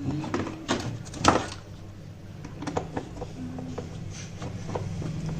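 Scattered clicks and knocks of metal screws and a hand tool being handled while the screws holding a washing machine gearbox are put in, over a low steady hum.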